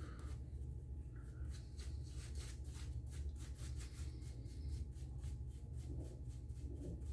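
Boar-bristle shaving brush (Omega 10048) scrubbing shaving-soap lather into a stubbled face, a soft, even swish of quick strokes at about four a second.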